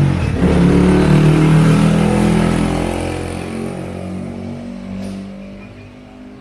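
A motor vehicle's engine running close by and passing, its sound fading away over the last few seconds.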